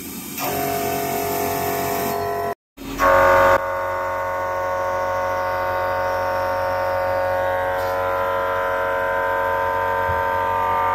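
Vertical machining centre milling a metal V-shaped punch on its final finishing pass: a steady whine of the spindle and cutter made of several held tones. It cuts out briefly near three seconds in, is louder for about half a second, then carries on steadily.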